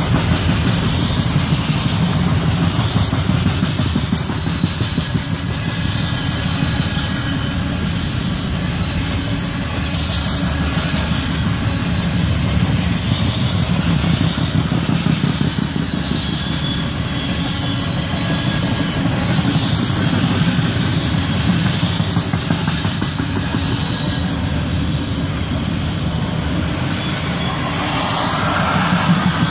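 Freight train of covered hopper cars rolling past at close range: a steady rumble of steel wheels on the rails, with a faint high whine over it.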